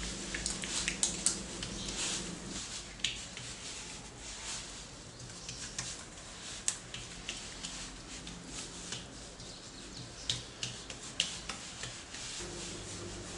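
Hands pressing and stretching oiled msemen dough out thin on a countertop: soft rubbing and smoothing, broken by many small sticky clicks and pats as palms and fingers lift off the oily dough.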